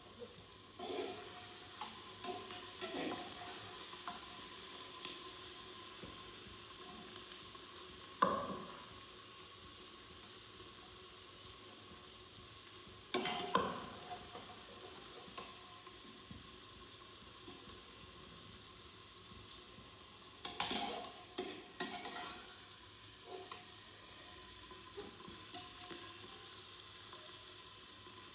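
Food frying in a pan with a steady sizzle, while a spoon stirs it and now and then knocks and scrapes against the pan, a few of the knocks clearly louder.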